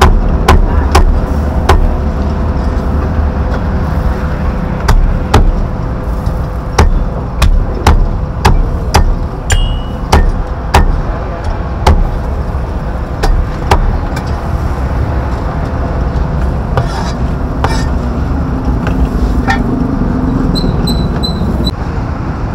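Cleaver chopping food on a chopping block, sharp strikes about two a second that thin out to a few scattered chops in the second half, over a steady low background din.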